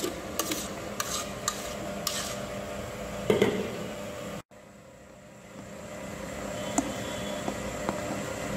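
Spatula scraping and knocking against a stainless-steel mixing bowl as egg-yolk sabayon is scraped out and folded into mascarpone, with irregular clicks and scrapes. After an abrupt cut about halfway through, a steady background hum continues with a few faint clicks from stirring.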